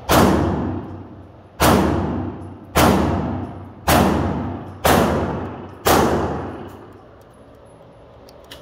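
Six 9 mm pistol shots fired about a second apart, each echoing and dying away in the indoor range.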